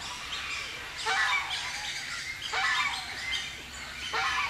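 Many birds calling and chirping together, with a louder call recurring about every one and a half seconds.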